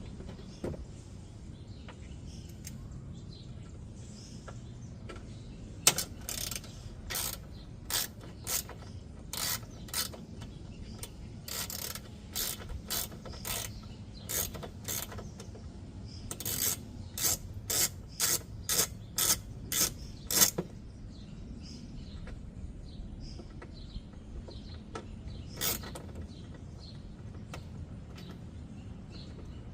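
Hand ratchet with an extension clicking in a run of short strokes, roughly one or two a second, as it backs out the bolts holding the car's underbody panel. One last stroke comes a few seconds after the run stops.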